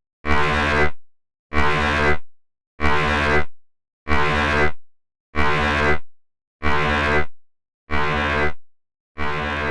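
Emergency Alert System alarm: a buzzy electronic tone pulsing on and off, each beep lasting under a second with a short silence between, about eight beeps, growing slightly quieter toward the end.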